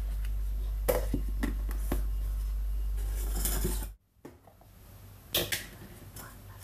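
Electric mixer-grinder running, grinding sugar and cornflour into icing sugar, a steady hum with the crystals rattling against the steel jar; it stops abruptly about four seconds in, followed by a faint knock.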